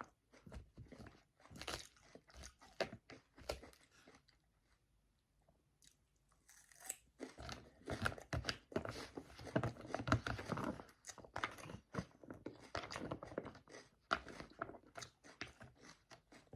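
Close-up chewing of a Caesar salad: crisp, wet crunching with bites and lip smacks. It eases off briefly about four seconds in, then comes back louder and denser.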